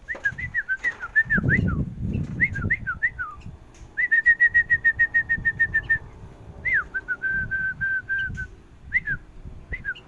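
A caged bulbul singing clear whistled notes. Quick rising-and-falling phrases come first, then a rapid even run of about seven notes a second around the middle, and a series of slower level notes near the end.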